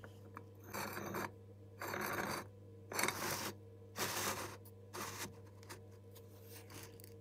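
Short scraping strokes, five in a row about a second apart, then a few fainter ones, over a steady low hum.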